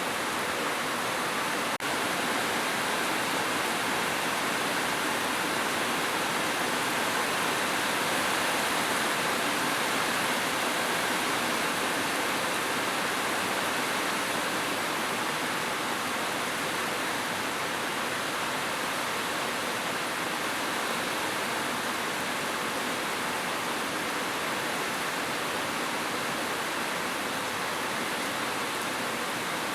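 Heavy rain falling steadily on a roof, an even hiss with a split-second dropout about two seconds in.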